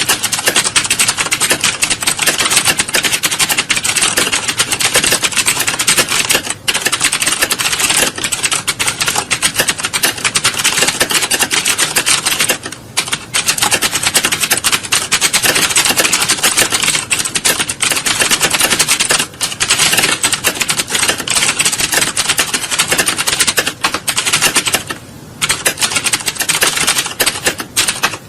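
Many computer keyboards being typed on at once, as in a typing-test exam hall: a dense, continuous clatter of key clicks, briefly thinning a few times.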